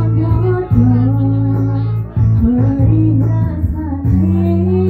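A woman singing a song live into a microphone over instrumental backing, her melody carried in long held notes broken into short phrases, above a steady deep bass line.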